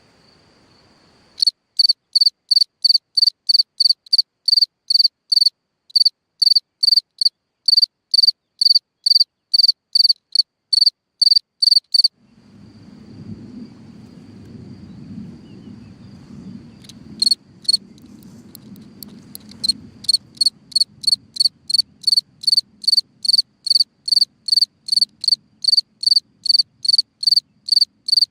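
Ground-dwelling cricket singing from its hole in the ground: loud, evenly spaced high chirps at about two a second, with a faint steady high tone beneath. The chirping pauses for several seconds about halfway through while a low rumble comes up, then resumes.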